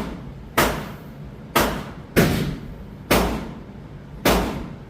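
A Glock 17 9mm pistol fired five times at an uneven pace. Each shot is a sharp, loud report with a short echoing tail.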